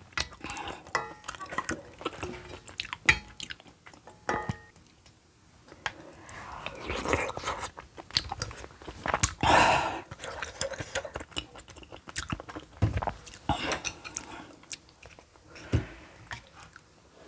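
Close-miked eating of kimchi stew: chewing and mouth sounds, with a ladle, spoon and chopsticks clicking and scraping against a steel pot and bowls.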